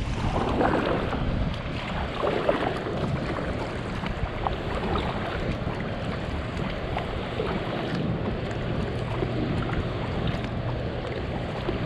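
Strong gusty wind buffeting the microphone, with water sloshing against a kayak, and a faint steady low hum underneath.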